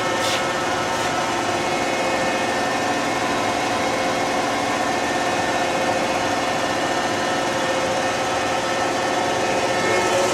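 Steady hum and whir of a powered-up Bridgeport EZ Path CNC turning center. Several steady tones sit over a constant machine drone.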